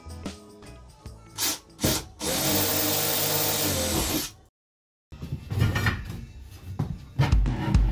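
Cordless drill working into a 6 mm phenolic plywood wall panel: two short blips of the trigger, then a steady run of about two seconds with a high whine that cuts off suddenly. After a brief dead silence come quieter knocks.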